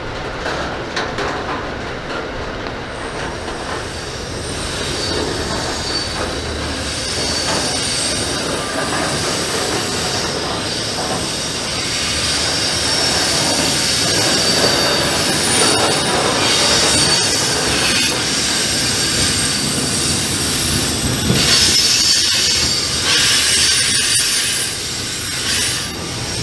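Freight train wagons rolling past close by, their steel wheels squealing on the rails over a steady rumble. The squeal starts a few seconds in and is loudest near the end.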